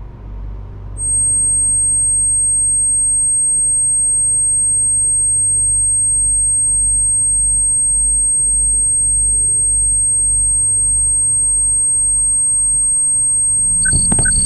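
Film sound design: a loud, steady high-pitched ringing tone starts about a second in and holds over a low throbbing rumble and hum. Near the end, rapid electronic beeps of about four a second join in.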